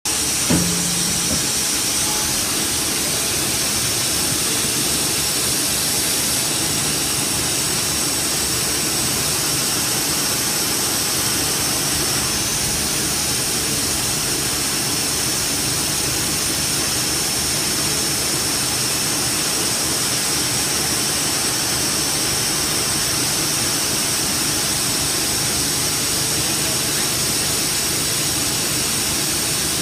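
CNC lathe running, a steady whirring hiss from the spindle and machine with a faint hum, and a single short knock about half a second in.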